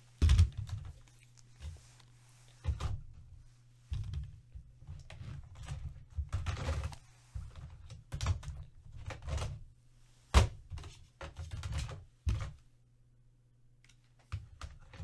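Irregular thumps and clicks of things being handled and set down on a tabletop, over a steady low electrical hum.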